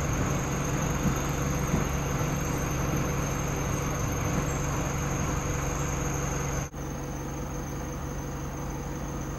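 A heritage passenger train hauled by a saddle-tank steam locomotive passes over a level crossing, a steady rolling rumble over a constant low engine hum. About two-thirds of the way through it cuts off abruptly, leaving a quieter, steady idling vehicle engine.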